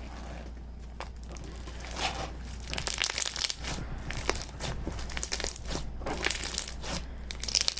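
Bead-filled slushee slime squeezed and kneaded by hand, making crunchy crackling clicks as the beads pop and rub. The crackling is sparse at first and turns dense and busy from about two and a half seconds in.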